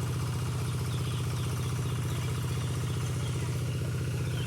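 A small engine running steadily with an even, fast chugging beat.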